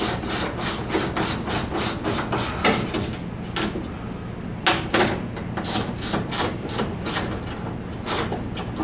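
Hand ratchet wrench worked back and forth on the door's bolts, making quick metallic clicking strokes, about four or five a second, in several bursts with short pauses between them.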